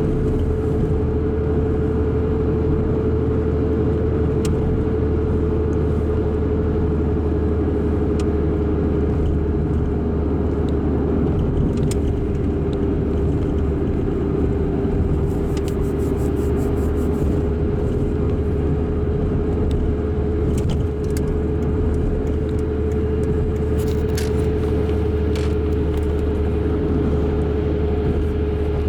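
Chrysler PT Cruiser's 2.0-litre four-cylinder engine running at high revs through a new muffler, held steady throughout: a constant low drone with a steady whine above it.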